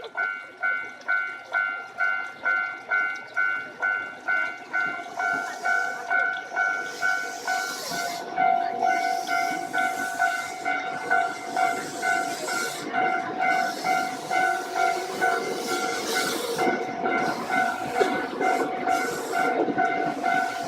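Japanese railway level-crossing warning bell ringing in steady pulses, a little under two a second. From about six seconds in, a train passes with rumbling, hiss and clacking wheels over the bell.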